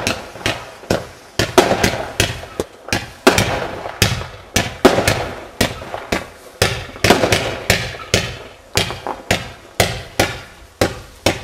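Fireworks exploding in quick, irregular succession, about two to three sharp bangs a second, each with a short echoing tail.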